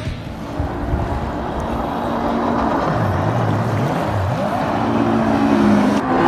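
Jet ski engine running out on the water, its pitch dropping and climbing back twice as the throttle is eased and reopened through turns. A louder engine sound cuts in near the end.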